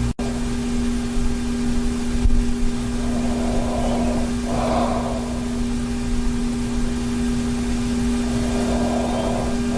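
A sleeping man breathing noisily with light snoring: two long breaths about five seconds apart, over a steady background hum.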